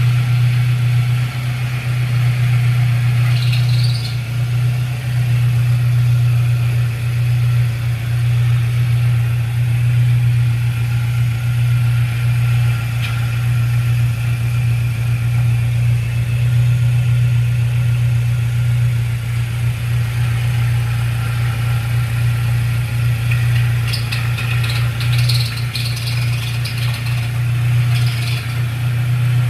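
A motor running with a steady low hum, with faint higher squeaky noises a few seconds in and again near the end.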